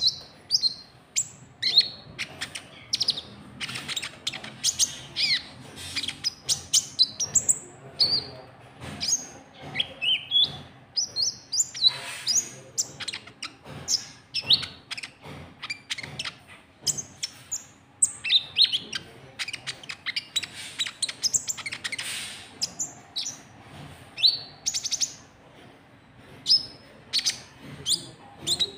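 Konin trotol bird calls, as used for luring: a rapid, irregular series of short high-pitched chirps, many sliding down in pitch, repeated without pause.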